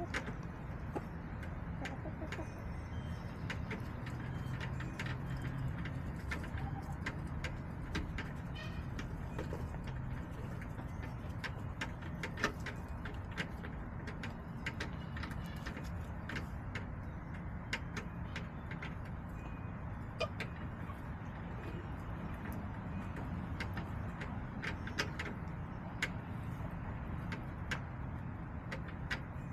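Backyard hens making soft, low contented calls, with many scattered short sharp clicks throughout.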